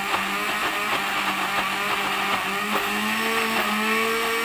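Countertop blender motor running steadily, grinding lemongrass, garlic, shallots and chilli with oil into a thick paste. Its hum steps up a little in pitch about two-thirds of the way through.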